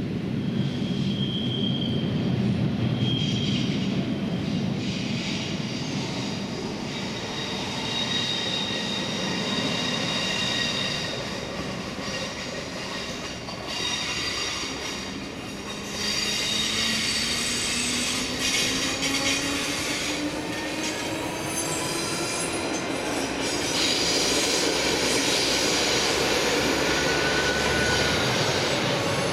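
BLS electric regional train approaching along the line, its wheels squealing in high tones on and off. Partway through, a motor whine rises steadily in pitch.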